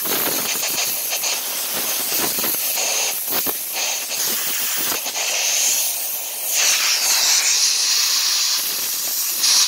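Compressed-air blow gun hissing as it blasts air through a brushless RC motor to blow out cleaner and dirt. The hiss grows louder and sharper about two-thirds of the way through, then cuts off abruptly at the end.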